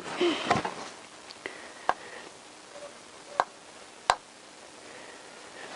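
Light handling noise with four sharp, separate clicks of small metal parts on a Honda CBR1000F's cylinder head during valve assembly.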